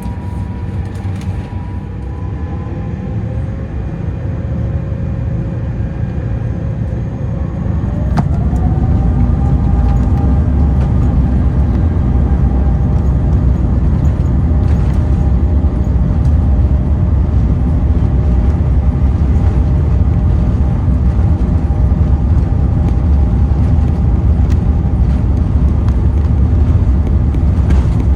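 Airbus A350-900's Rolls-Royce Trent XWB engines heard from the cabin, spooling up: a whine rises in pitch and the noise grows about eight seconds in, then settles into a steady, loud rumble as for take-off thrust.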